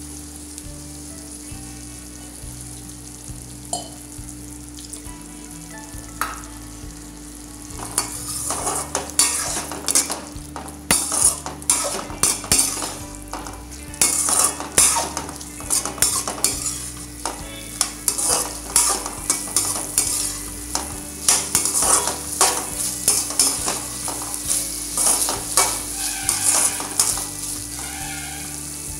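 Potato Manchurian sizzling in a metal kadai as cornflour slurry is poured in to make the sauce thicken into a gravy. From about eight seconds in, a slotted metal spatula scrapes and clatters against the pan in quick, irregular strokes as the mixture is stirred.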